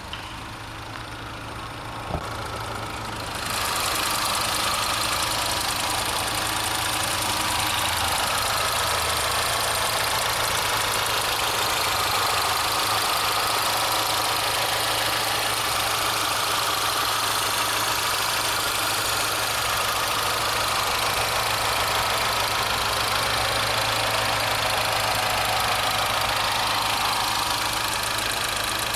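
The Peugeot 207 GT's 1.6-litre 16-valve turbocharged four-cylinder petrol engine idling steadily. It gets louder and fuller about three and a half seconds in, once heard up close in the open engine bay.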